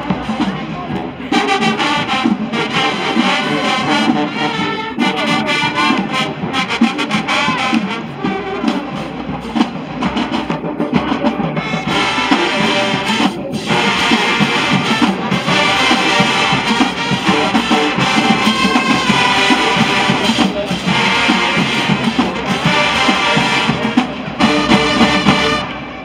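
High school marching band playing live: brass section with sousaphones and trumpets over marching drums.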